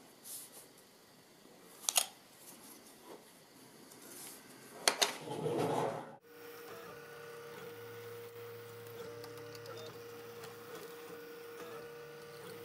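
A 3D-printed PLA foldable drawer handle being worked in its frame: sharp plastic clicks about two and five seconds in, the second the loudest, with brief rubbing. From about six seconds in, a 3D printer's stepper motors hum and whine steadily while printing.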